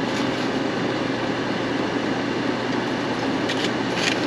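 A steady mechanical whir and hiss with a low hum under it. A few faint short scrapes come near the end.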